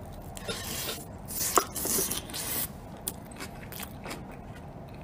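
Eating close to the microphone: chewing a mouthful, with a plastic spoon scraping and clicking in a disposable takeaway container. The loudest scraping comes in the first half, with a sharp click about a second and a half in, then only small clicks.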